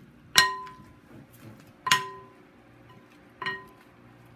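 Wooden salad spoons striking a clear glass mixing bowl while tossing salad: three clinks about a second and a half apart, the glass ringing briefly after each.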